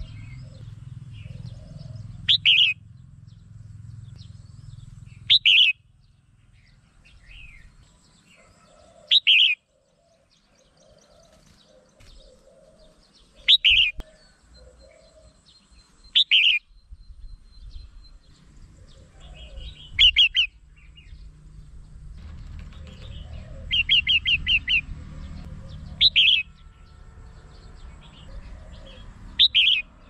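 Red-whiskered bulbul calling: about nine short, loud whistled phrases spaced three to four seconds apart, one of them a quick run of about six notes about two-thirds of the way in, over a faint low rumble.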